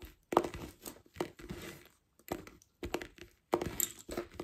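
Lace bobbins knocking and clacking against each other in irregular clicks as pairs are worked across bobbin lace.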